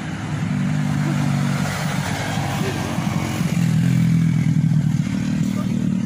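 An engine running steadily at a low, even pitch, swelling a little past the middle.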